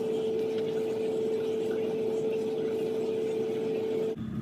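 A steady machine-like hum, one constant tone over a hiss, which cuts off suddenly near the end and gives way to a lower, quieter hum.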